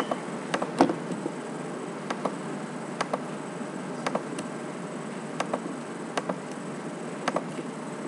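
Computer mouse clicking at irregular intervals, single sharp clicks with the loudest a little under a second in, over a steady background hiss from the microphone.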